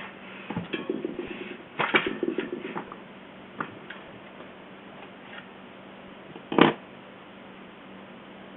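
Tire lever scraping and clicking along a bicycle wheel rim as the tire bead is worked off, with scattered scratchy rubbing in the first few seconds and one sharper snap about six and a half seconds in.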